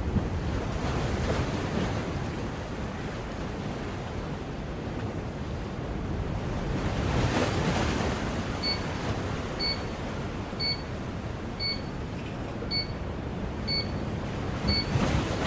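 Steady hiss throughout. From a little past halfway, an LED digital alarm clock beeps: short, high electronic beeps about once a second, seven in all.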